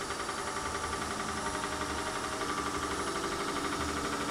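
Wood lathe running with an unbalanced rough birch blank spinning, a steady machine hum with a fast, even throb. The throb is the machine shaking from the out-of-round blank while the speed is set low enough to tame it.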